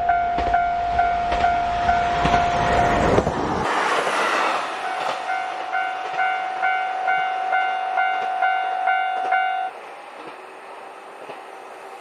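Japanese railway level-crossing alarm ringing its repeated electronic ding, about two and a half strikes a second. For the first few seconds it rings over the heavy rumble and rail clatter of a passing diesel train. After an abrupt change about 4 s in, the bell rings on alone at a slightly higher pitch and stops about 10 s in.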